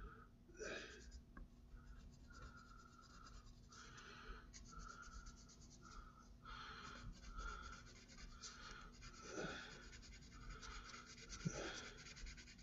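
Gray colored pencil scratching faintly on paper in a steady run of short strokes, about one or two a second, as a small shape is shaded in.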